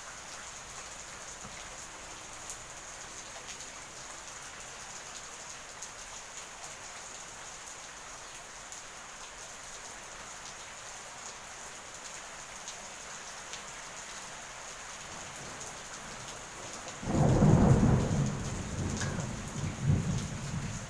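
Steady rain hissing down, then near the end a sudden loud clap of thunder that rumbles and rolls on for a few seconds before the rain is left alone again.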